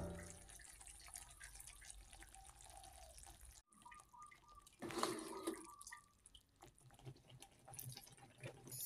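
Faint ticking and popping from wet watermeal paste cooking in an aluminium pan on a gas burner, a sound like slow dripping, with a brief louder patch about five seconds in.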